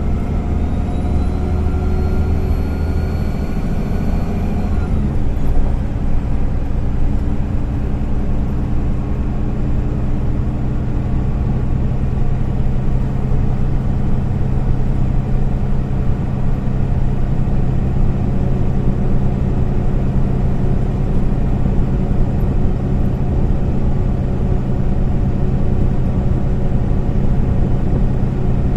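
MAN Lion's City A20 NL city bus under way, heard from inside the cabin at the rear: a rising whine over the engine for the first few seconds, which drops away about five seconds in, then a steady engine drone with road rumble as the bus cruises.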